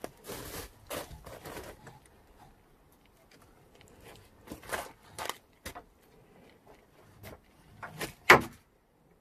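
Wooden sticks strung with eulachon being shifted and knocked against the smokehouse's wooden rack poles: a string of scrapes and clacks, the loudest a sharp knock near the end.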